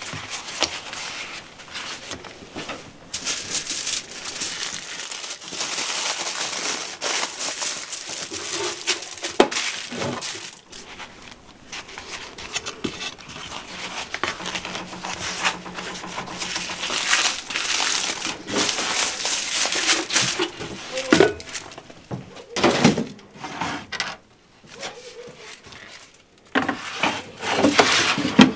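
Aluminium foil crinkling and rustling in irregular bursts as food is wrapped and handled, with a few sharp knocks.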